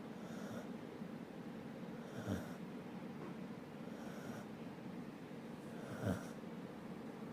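Sleeping dog snoring, one snore about every two seconds, four in all, the second and fourth the loudest.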